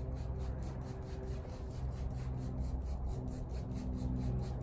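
Microfiber towel rubbing and wiping over a car's glass and paint in quick, even strokes, about five or six a second, over a steady low hum.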